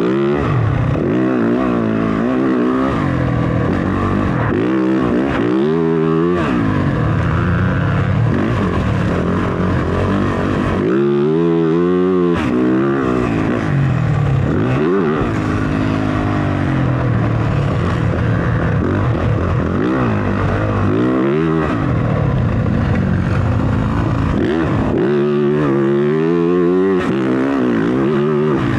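Motocross dirt bike engine being ridden hard, its pitch rising and falling again and again as the rider opens and closes the throttle and shifts gears.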